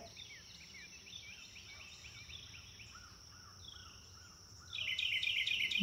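Faint nature ambience: a steady high insect-like drone with many small bird chirps, which grow louder near the end.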